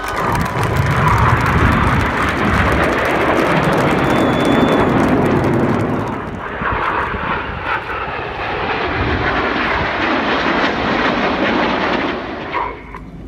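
Formation of BAE Hawk T1 jets flying past, the loud roar of their Adour turbofan engines. The roar swells in the first second, dips briefly about halfway, swells again and falls away near the end.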